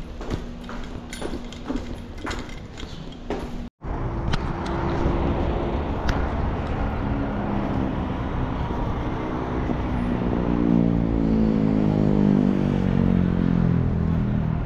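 Light clicks over a low street hum, a sudden cut, then city traffic noise with a motor vehicle's engine running close by, its note shifting in pitch and growing louder in the second half.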